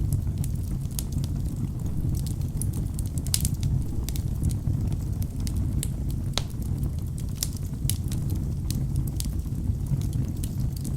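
Wood fire burning in a fireplace: a steady low rumble of flames with sharp, irregular crackles and pops from the burning logs, one louder pop about six seconds in.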